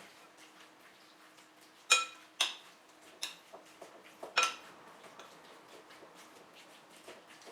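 Kitchen clatter of dishes and cutlery: three sharp, ringing clinks about two, two and a half and four and a half seconds in, with lighter taps between, over a faint steady hum.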